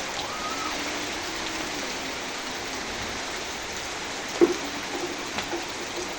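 Steady rain falling, an even hiss, with a single sharp knock about four and a half seconds in.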